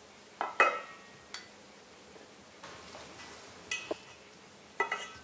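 Two wooden spoons tossing a noodle and vegetable salad in a stainless steel mixing bowl, knocking against the bowl about four times so it clinks and rings briefly, with soft stirring between the knocks.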